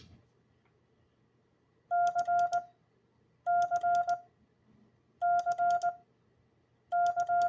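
Morse code sidetone keyed on a Vibroplex iambic paddle: the letter C (dah-dit-dah-dit) sent four times as groups of steady mid-pitched beeps about a second and a half apart, with sharp clicks along with the tones.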